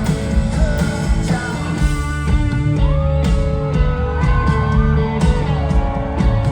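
Live rock band playing, with a voice singing over guitars, bass and drums keeping a steady beat.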